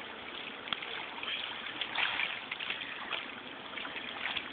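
Pool water splashing and sloshing as a child swims and paddles, a run of small irregular splashes that grows louder about two seconds in.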